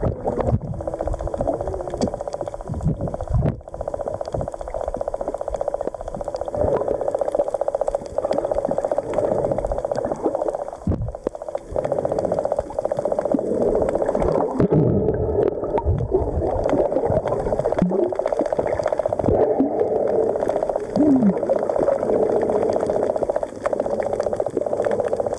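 Muffled underwater sound picked up by a submerged camera: a steady hum of moving water with bubbling and gurgling, faint crackling, and low bumps now and then.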